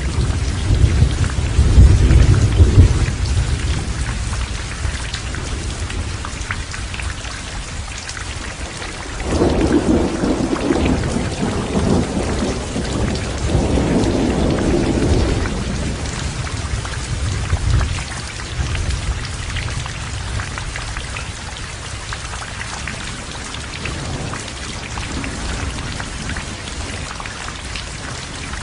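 Heavy rain falling steadily, with rolling thunder. A deep rumble in the first few seconds is the loudest part, and a second long roll of thunder starts about nine seconds in and lasts some seven seconds.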